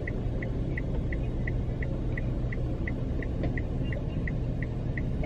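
A car's warning chime repeating quickly, about three short high beeps a second, over the steady low hum of the car's engine idling.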